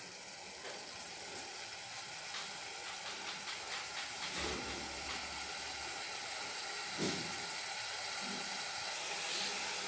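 Tomatoes and greens sizzling in oil in a pressure cooker pan: a steady frying hiss.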